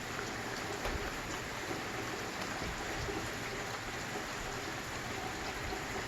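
Steady rain falling in a thunderstorm: an even hiss with a few faint ticks of drops.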